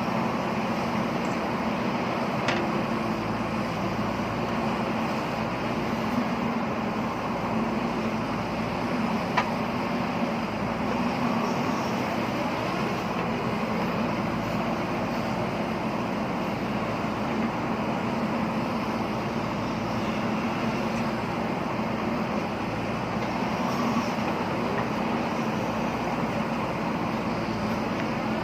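JCB backhoe loader's diesel engine running steadily under working load, with two sharp metallic clicks about two and a half and nine and a half seconds in.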